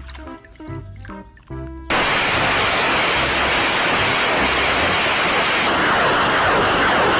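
Light background music, then about two seconds in a loud, steady rush of spraying water starts suddenly and covers it.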